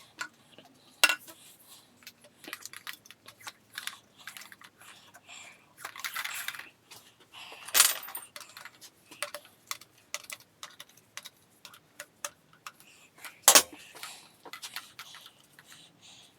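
Scattered metallic clinks and knocks of hand tools and engine parts being handled while motorcycle connecting rods are unbolted and their caps split off. Louder knocks come about 8 seconds in and again about 13 seconds in.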